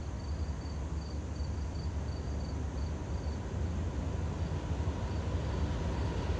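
Low, steady rumble of an approaching CSX diesel freight locomotive, still distant and slowly growing louder. Over it an insect chirps in a steady rhythm, about three chirps a second, fading out about halfway through.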